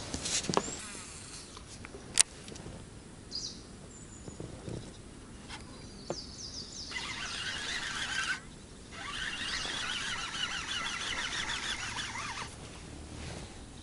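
Baitcasting reel being cranked to retrieve line: a fast ticking whir for about a second and a half, a brief pause, then about three more seconds of cranking. A single sharp click about two seconds in.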